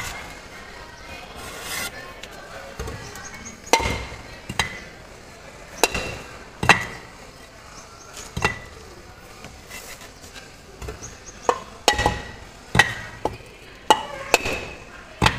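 A small metal hammer knocking on a lightweight aerated concrete (hebel) block to cut it: a dozen or so sharp knocks at an uneven pace, each with a short, slightly ringing tone.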